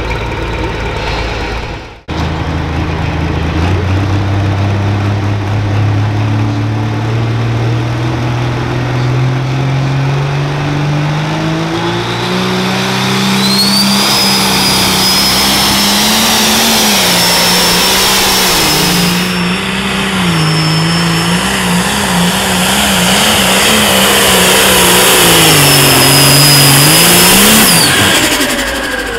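Turbocharged diesel pro stock pulling tractor under full load pulling the sled: the engine climbs steadily in pitch for about ten seconds, then holds at high revs with a wavering note while a high whistle rises over it, and winds down near the end as the run finishes.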